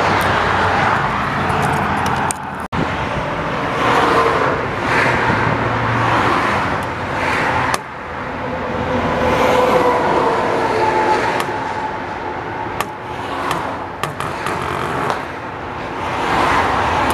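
Wind rushing over the microphone, mixed with road traffic noise. The sound breaks off sharply twice, in the first half.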